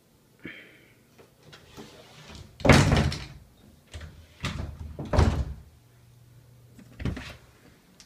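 Back door being opened: a loud thump and rumble about two and a half seconds in, followed by three more bumps.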